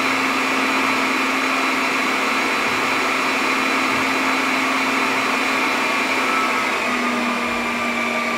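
Cooling fans of a Dell PowerEdge R720xd rack server running at high speed: a loud, steady whirring whine. Its pitch steps down slightly about seven seconds in.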